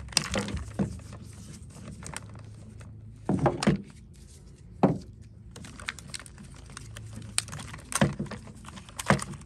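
Irregular plastic clicks, knocks and thunks from hands and tools working the plastic housing of a Bissell CrossWave Cordless Max floor cleaner during disassembly. There is a louder cluster of knocks around three and a half seconds in, a single sharp knock near five seconds, and more knocks near the end.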